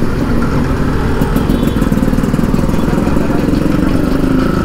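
Yamaha RX100's 98cc single-cylinder two-stroke engine, breathing through an aftermarket expansion-chamber exhaust, running steadily at low revs with a rapid, even firing beat.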